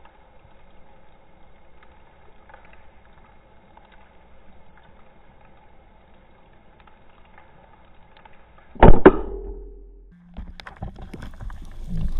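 Underwater, a faint steady hum, then about nine seconds in a single loud crack of an LGsub Revolution speargun firing at a grouper, with a short ringing tone after it. Scattered knocks and rattles follow.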